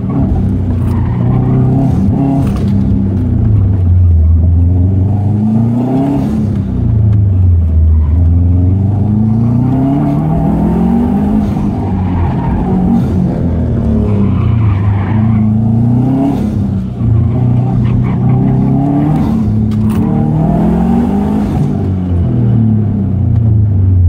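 2006 Subaru Impreza WRX STI's engine, heard from inside the cabin, revving up and dropping back again and again, every two to three seconds, as the car accelerates and slows through a hard autocross run.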